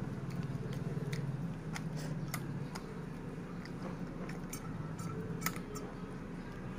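A pig and a baby monkey sucking milk from baby-bottle teats, making irregular wet smacking clicks a few times a second.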